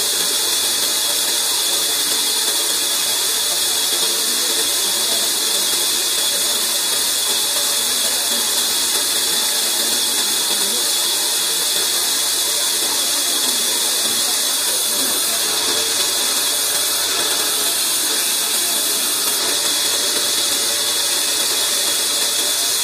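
Large vertical band saw running steadily, its blade cutting lengthwise through an old log, a continuous high-pitched hiss.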